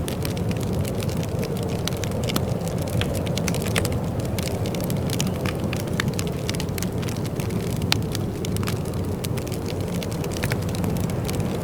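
Wood fire crackling in a fireplace: many irregular sharp snaps and pops over a steady low rumble.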